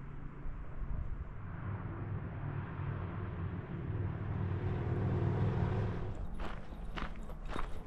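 Low engine rumble of a motor vehicle passing nearby, swelling over a few seconds and then fading. Footsteps on the trail follow near the end.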